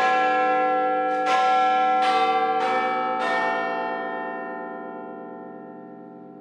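Bells struck about five times in the first three and a half seconds, each strike ringing with many overtones, then the ringing dies away slowly.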